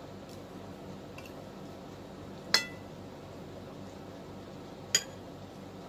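Metal cutlery clinking against ceramic dishes during a meal: two sharp, brief ringing clinks about two and a half seconds apart.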